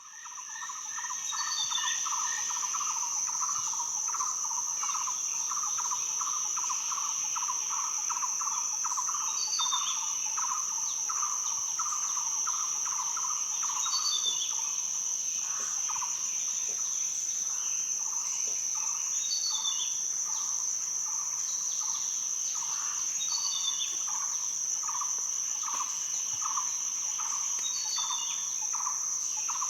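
Rainforest ambience fading in over the first second or two: a steady high-pitched drone of cicadas and other insects, a lower rapid pulsing call at about two a second, and a short falling bird chirp that repeats every four to five seconds.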